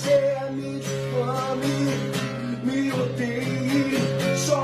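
Acoustic guitar strumming chords, with a man's voice singing a drawn-out melody over it.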